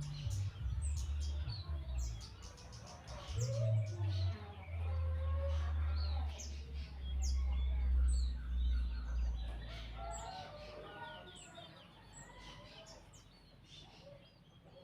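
Small birds chirping, with many short, quick calls, over a low rumble that fades out about ten seconds in.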